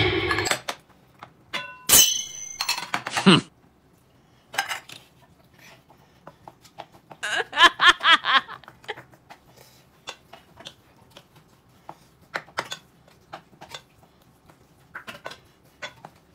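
Scattered short clicks and clinks of tableware and eating during a meal, with a brief wavering vocal burst, like laughter, about seven to eight seconds in.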